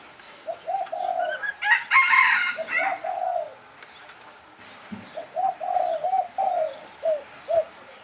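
Spotted dove cooing: two phrases of short, arched coos, the second starting about five seconds in. A loud, harsher call cuts across the first phrase about two seconds in.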